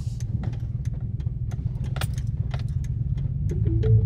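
Pickup truck engine running at low speed, heard from inside the cab, with frequent light clicks and rattles. A brief two-pitch sound comes near the end.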